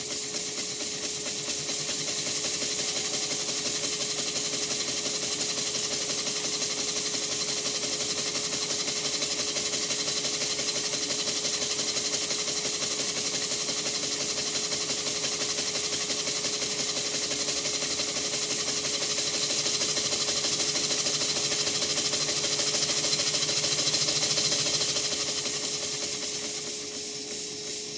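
3-inch scale Garrett DCC traction engine running on compressed air, with rapid, even exhaust beats over a strong steady hiss of air. There is an air leak where the lubricator's oil pipe should connect. It eases off near the end as the air is shut off.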